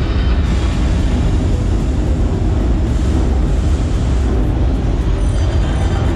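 Loud, steady low rumble of recreated ore-mill machinery, played over speakers as part of a show staging the copper concentrator running.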